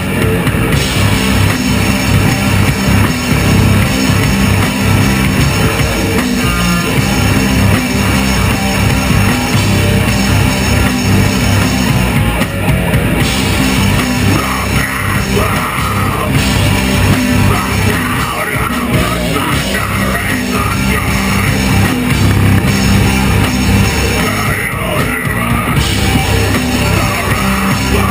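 Stoner metal band playing live: electric guitars, bass guitar and drum kit, loud and continuous.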